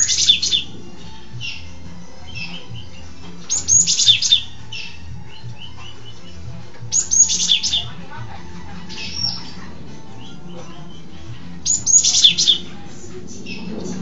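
Cinereous tit (gelatik batu) singing: short bursts of high, sharp chirping notes, repeated about every three to four seconds.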